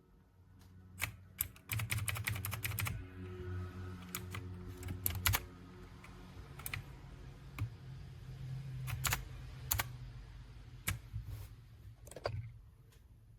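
Clicky blue-switch mechanical keyboard, a ZIYOU LANG 68-key 60% board, being typed on: a quick run of keystrokes about two seconds in, then scattered single key clicks, over a steady low hum.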